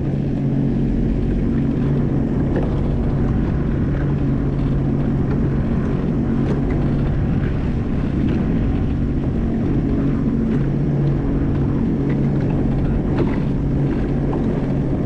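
Sea-Doo FishPro Sport 170 personal watercraft engine running at a steady low speed, an even hum that does not change.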